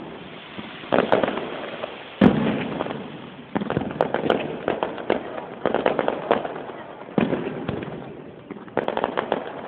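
Aerial fireworks shells bursting in a run of booms, one every second or two, each followed by a fading tail of crackles; the loudest burst is about two seconds in.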